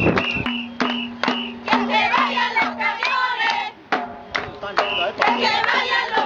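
A crowd of protesters chanting in rhythm over steady claps, about two to three beats a second.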